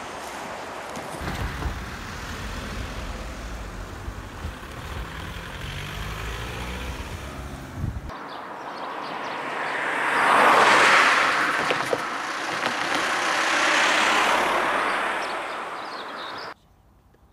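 Passing vehicle noise in two separate shots. First comes a low engine drone with a steady hum for several seconds. After a sudden cut, a vehicle passes close: the noise swells to a loud peak, dips, swells again and then cuts off abruptly.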